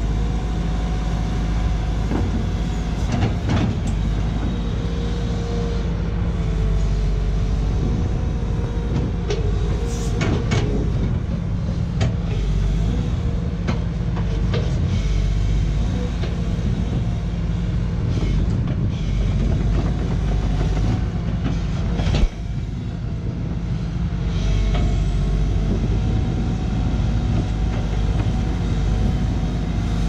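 Sany SY215C excavator's diesel engine running steadily under load, with a tone that wavers in pitch as the boom and bucket work and scattered metallic knocks and clanks. The sharpest knock comes late, with the sound dipping briefly after it.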